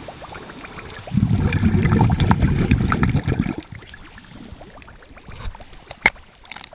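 Muffled underwater bubbling and gurgling of churned water, loudest for about two and a half seconds starting a second in, then fading lower. A single sharp click or splash comes near the end as the water surface is broken.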